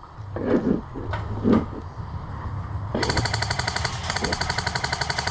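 Airsoft electric gun firing on full auto, a rapid, even clatter of shots that starts about three seconds in and keeps going. It is preceded by a few short, muffled sounds.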